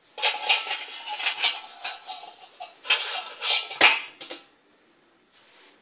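Metal cookware clinking and knocking on a gas stove: a quick, irregular run of sharp knocks for about four seconds, with one heavier knock near the end.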